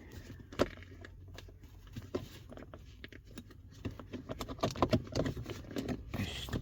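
Hands handling and adjusting a leather gear stick gaiter in a car's centre console: scattered small clicks, taps and rustling, busiest a little after halfway.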